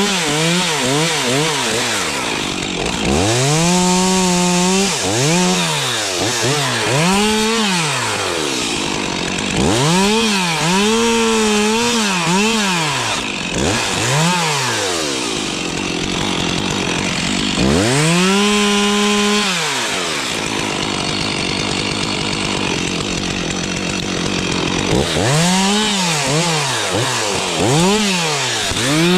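Stihl chainsaw being worked on dead spruce, the engine revving up and down over and over. Quick throttle blips alternate with several held full-throttle stretches of a second or two, typical of the saw cutting into wood.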